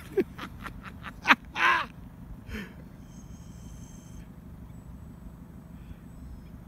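Seagull giving a run of short, harsh squawks and cries in the first two and a half seconds, over the steady low hum of a slow-moving vehicle's engine.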